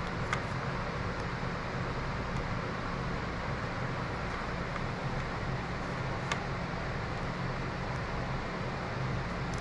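Steady hiss over a low hum from a running fan-driven machine, with a couple of faint light clicks.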